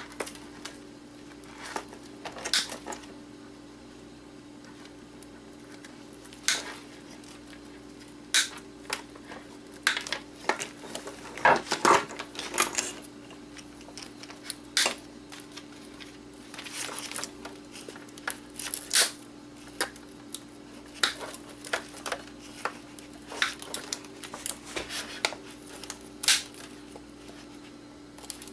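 Hand wire cutters snipping wires and ribbon cable loose from circuit boards, with the rattle of boards and loose wires being handled: irregular sharp snips and clicks, busiest about halfway through, over a steady low hum.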